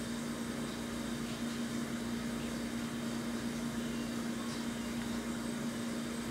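A steady low hum with an even hiss behind it, like a running appliance or fan.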